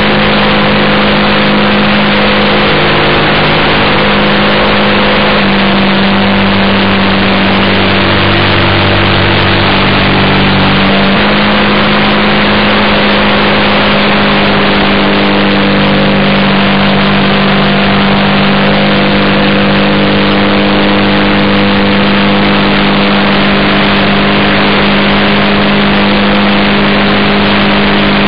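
Quarter-scale RC Piper J3 Cub's engine and propeller droning steadily in flight, heard from an onboard camera under the wing, with heavy wind rush over the microphone. The engine note steps slightly in pitch a few times.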